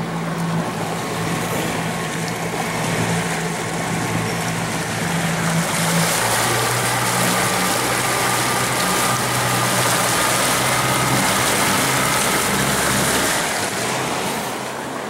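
Yamaha 90 hp outboard motor running a bass boat at speed, a steady engine note under the rush of wind and water over the hull. The motor picks up about halfway through, its pitch shifting, then eases off near the end.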